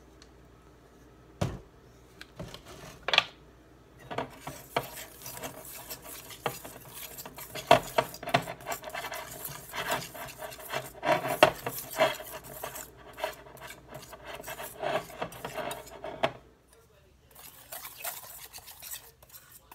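Wire whisk beating thick powdered-sugar icing in a stainless steel bowl: rapid scraping and clinking of the wires against the metal. It starts about four seconds in, after a couple of knocks, and stops suddenly a few seconds before the end, leaving fainter scraping.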